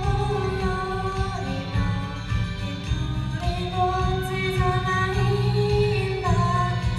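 Female voice singing a Japanese pop song, holding long notes over a steady instrumental accompaniment.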